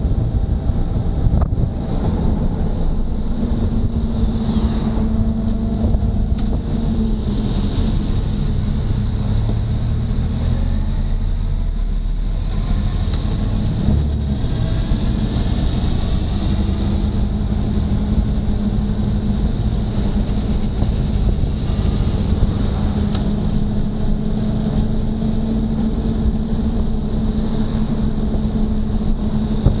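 Motorcycle engine running at town speed, with wind buffeting the microphone. The engine note shifts about halfway through as the bike slows down and picks up again, then holds steady.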